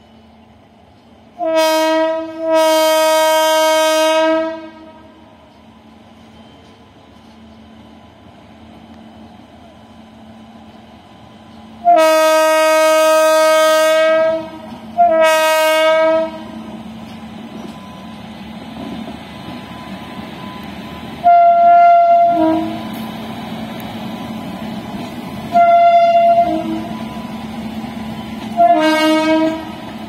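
WAP7 electric locomotive's horn sounding repeatedly on approach: a short blast and a long one near the start, two more around the middle, then three short blasts near the end. Between the blasts the train's rolling noise and a steady hum grow louder through the second half as it runs past.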